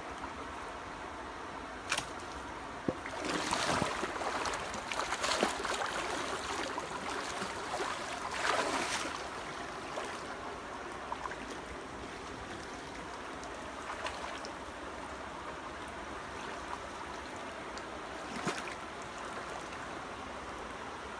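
Water sloshing and splashing around a person wading in a shallow stream, loudest in two spells of a few seconds, with a few sharp clicks.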